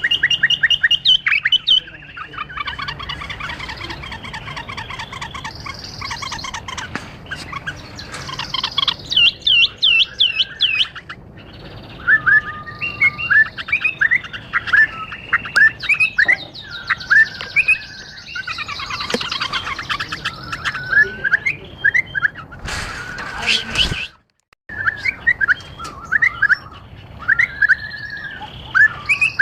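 Bulbuls chirping and calling, many quick whistled notes and trills overlapping, with a brief drop-out about four-fifths of the way through.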